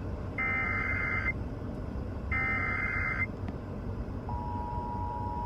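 Emergency Alert System SAME header: two bursts of screeching digital data tones, each about a second long and two seconds apart. About four seconds in, the steady dual-tone EAS attention signal starts. Together they announce an incoming National Weather Service severe thunderstorm warning.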